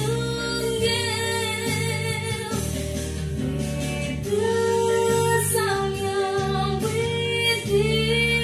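A girl singing solo with long held notes over instrumental backing music.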